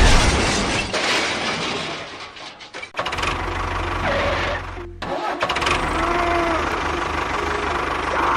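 Engine sounds in an edited soundtrack. An engine running fades down about two seconds in, then cuts back in with engine-starting and running sound about three seconds in, with another sharp cut near five seconds.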